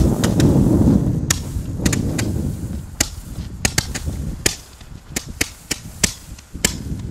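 Four roman candles firing together: an irregular run of sharp pops as they shoot out their red and then green stars, sometimes several a second.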